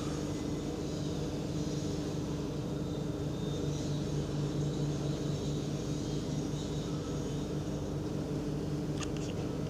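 Steady machine hum, with a few light ticks near the end.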